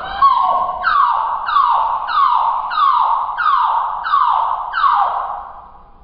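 Domestic canary singing, played slowed down so the notes are drawn out and low: a run of about seven falling, siren-like notes, roughly one and a half a second, that stops about five and a half seconds in.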